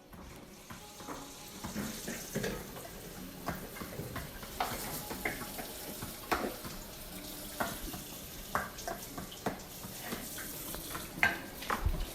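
Water running from a tap into a sink, with scattered clinks and knocks throughout.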